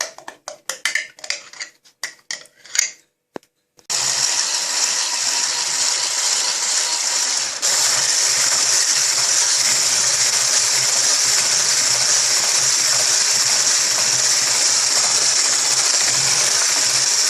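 A few clicks and knocks, then an electric mixer starts about four seconds in and runs steadily, whipping sour cream with powdered sugar; it gets a little louder about eight seconds in.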